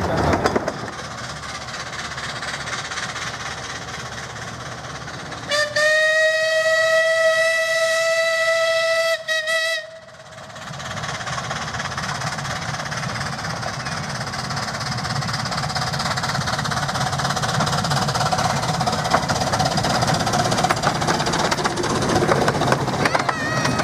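Miniature steam locomotive's whistle: one long blast of about four seconds, then a brief second toot. After it, the steam train's running noise builds steadily as it comes closer.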